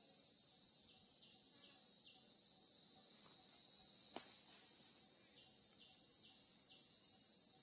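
Steady, high-pitched insect chorus, with a single sharp click about four seconds in.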